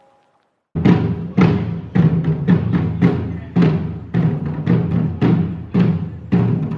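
Background music with a steady drum beat, about two hits a second, starting after a brief silence.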